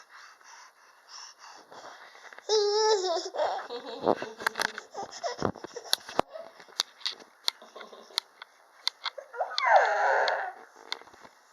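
Baby of about ten months vocalizing: a loud wavering squeal about three seconds in and a falling squeal near the end, with babbling, laughing sounds and soft rustling and knocks between them.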